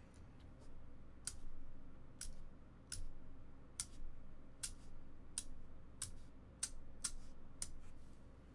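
A computer mouse button clicks about ten times, one sharp click every half second to a second, as the randomize button is pressed over and over.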